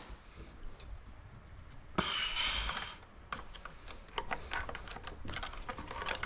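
Hand tools clicking and tapping on metal while the shift linkage is removed from a 48RE automatic transmission, with a brief hissing, whirring burst lasting about a second a couple of seconds in.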